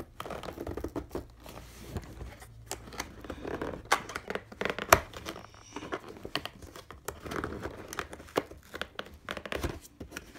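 Stiff cardboard box being pulled and pried open by hand: flaps rubbing and scraping, with irregular crackles and sharp snaps of the cardboard, the loudest snap about halfway through.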